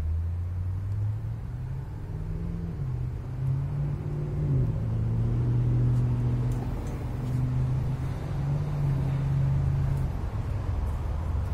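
An engine running, coming in suddenly at the start with a low hum that shifts up and down in pitch several times.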